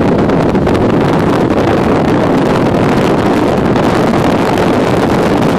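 Loud, steady rush of wind and road noise pouring in through an open car window while driving, buffeting the microphone.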